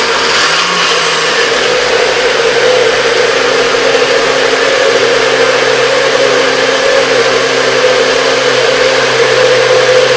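Electric blender running loud and steady, blending fruit, crushed ice and milk into a smoothie.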